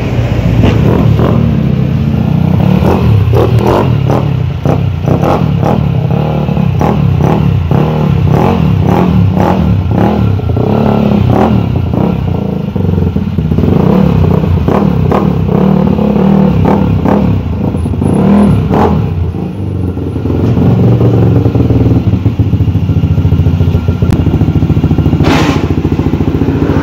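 Yamaha NMAX v1 scooter's single-cylinder engine, bored out to 230cc with a JVT cylinder head, running loudly through a JVT aftermarket exhaust with an uneven, pulsing sound.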